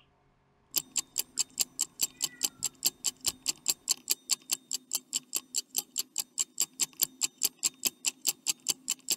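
Stopwatch ticking sound effect, a quiz countdown timer giving time to answer. Sharp, even ticks at about four a second start just under a second in, over a faint low hum.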